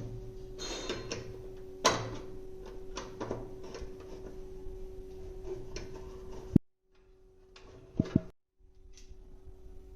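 Scattered clicks and knocks of parts being handled on a washing machine being checked for a water blockage, over a steady hum. The sound cuts off suddenly after about six and a half seconds, followed by two sharp clicks.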